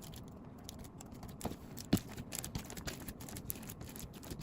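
Small irregular clicks and taps from slime and its plastic tub being handled, with one louder knock about two seconds in.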